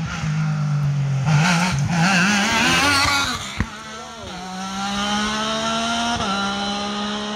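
Single-seater hillclimb race car's high-revving engine through a chicane. The engine note warbles up and down, then climbs steadily in pitch as the car accelerates away, with one sharp crack in between. The pitch drops once, about six seconds in, as it shifts up.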